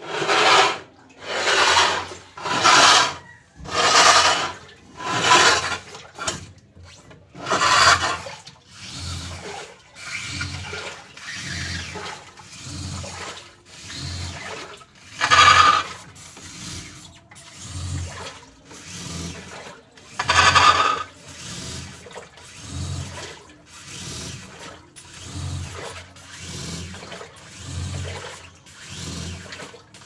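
Washing machine running its wash cycle. About once a second the drive reverses, and each stroke comes as a swishing, rasping burst over a low thud. The strokes are loudest in the first few seconds, and the rasp is the noise the machine is being opened up to fix.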